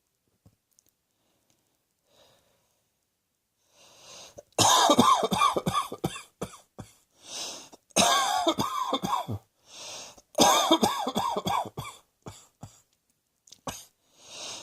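A person coughing in three hard fits starting about four seconds in, each a run of several quick coughs, with a noisy breath drawn in before each fit and a few smaller coughs near the end.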